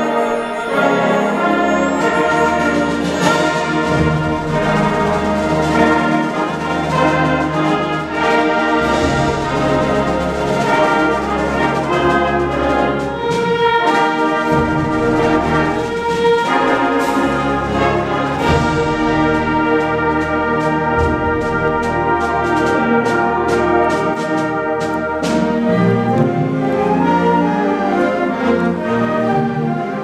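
A middle school concert band playing an overture, with brass and woodwinds sounding together. Sharp percussion strokes come through, most densely in the second half.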